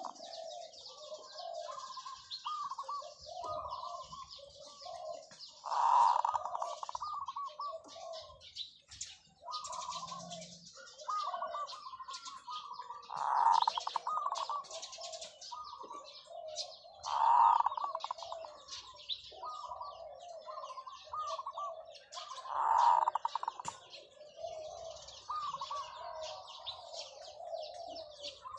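Zebra dove cooing: a loud rolling call every four to seven seconds, each followed by a long string of short staccato coos. A steady high twittering of small birds runs underneath.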